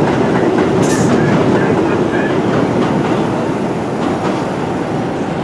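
New York City Subway 1 train at the station, a steady rumble from the cars on the rails. A short hiss comes about a second in.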